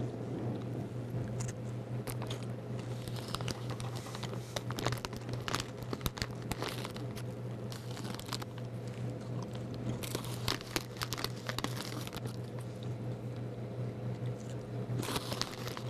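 Someone crunching and chewing Herr's barbecue potato chips, with the bag crinkling, in many irregular crisp crunches over a steady low hum.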